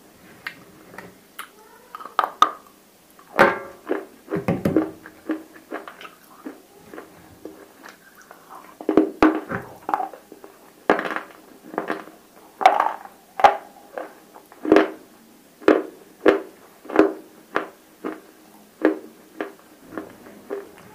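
Close-miked crunching of dry grey clay cubes being bitten and chewed. A few irregular loud bites come first, then a steady run of sharp crunches, a little over one a second, from about nine seconds in.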